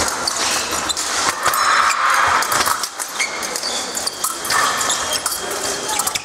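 Fencers' feet stamping and shuffling on the piste, with sharp clicks and knocks over the steady noise of a large sports hall.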